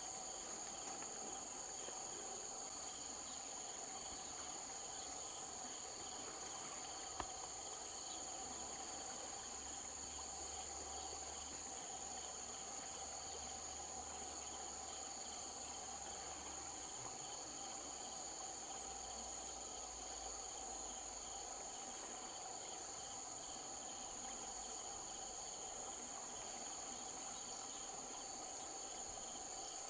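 A steady, high-pitched chorus of insects droning without a break, with a faint pulsing beneath it. One faint click comes about seven seconds in.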